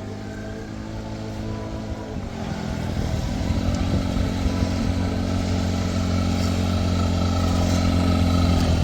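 Small motorbike engine running. About two seconds in its pitch steps up and it grows louder, then holds steady.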